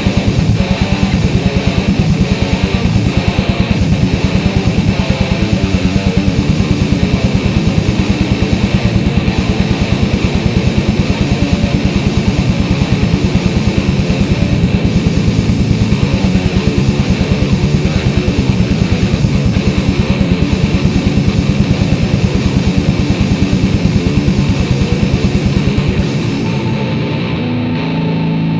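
Death metal instrumental: distorted electric guitars and bass over a fast, dense beat. About 26 s in the fast beat stops and the sound turns duller, leaving held guitar tones.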